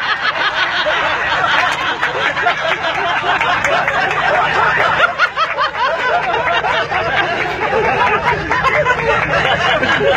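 A group of men laughing together, many overlapping chuckles and snickers that carry on without a break.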